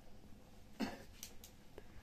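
A person coughing once, briefly, a little under a second in, followed by a few faint clicks.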